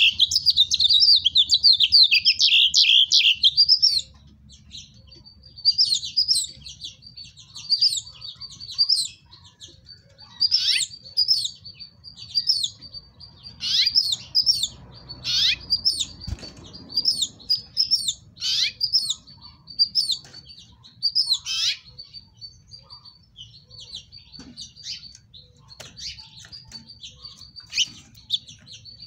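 House finches chirping. A rapid, loud warbling song opens the stretch and breaks off after about four seconds. It is followed by scattered short chirps and several calls that slide sharply downward in pitch.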